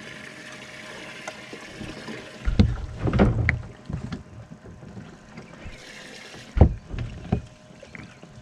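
Bumps and knocks of handling on a bass boat's deck at the live well as a bass is put in, loudest in a cluster of thumps about two and a half seconds in, with two sharper knocks near the end. A faint steady hum runs underneath.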